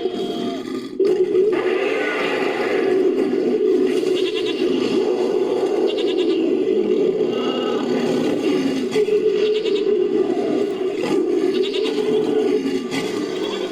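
Designed creature vocalizations layered from animal calls, goat and sheep bleats among them, running almost without pause, with a brief sudden break about a second in.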